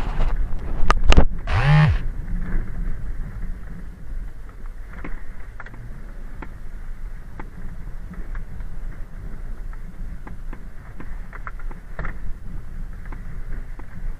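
Vehicle driving over an unpaved dirt road: steady low rumble of engine and tyres with wind noise, and scattered knocks and rattles from bumps. A few loud jolts and a brief pitched sound in the first two seconds are the loudest part.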